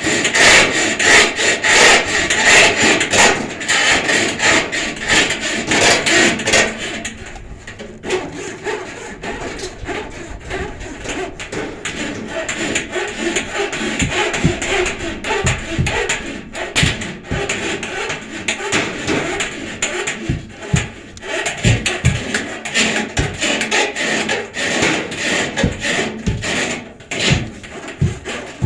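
Hand saw cutting through wood in repeated back-and-forth strokes, louder for the first several seconds and then quieter.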